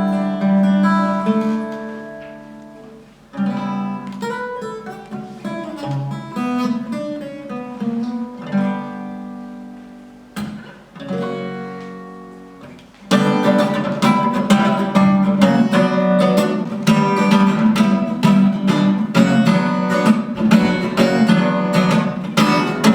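Acoustic guitar playing an instrumental intro: single chords picked and left to ring and fade for the first thirteen seconds or so, then steady rhythmic strumming.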